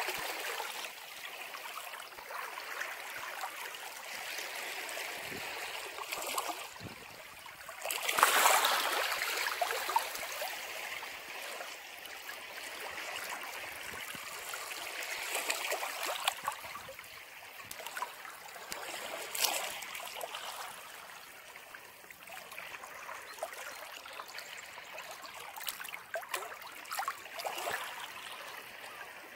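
Ocean surf washing against a rocky shore: a steady rush of water that swells and ebbs with each wave, the biggest surge about eight seconds in.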